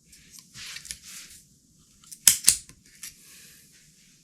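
Rustling of packaging or plastic being handled, with two sharp clicks close together a little over two seconds in.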